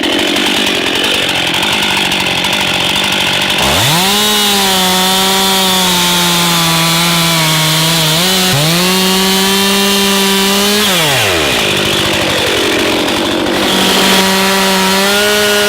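Petrol chainsaw revving up sharply about four seconds in and running at high speed through the felled oak trunk, its pitch sagging slightly in the middle, then dropping back to a lower running speed around eleven seconds in; it revs up again near the end and winds down.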